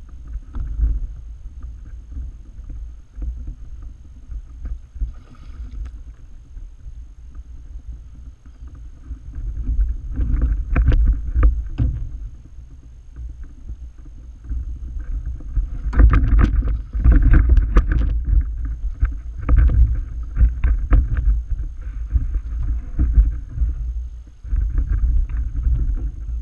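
Sounds of a fishing kayak on the water: a steady low rumble, with clusters of sharp clicks and knocks about ten seconds in and again for several seconds around the middle.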